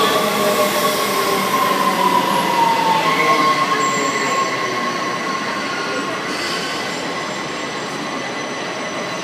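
Washington Metro railcar running on the rails, heard from on board, with the wheels squealing: a high squeal slides down in pitch and fades out about three seconds in. The steady rail rumble and hiss carry on, easing slightly after that.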